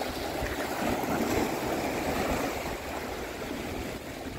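Small sea waves washing and splashing against the boulders of a rock breakwater, a steady rush that swells and eases.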